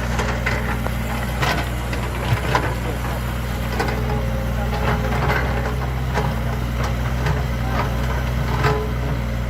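Excavator's diesel engine running steadily, with scattered sharp cracks and knocks over it, as of the machine working through wood and earth.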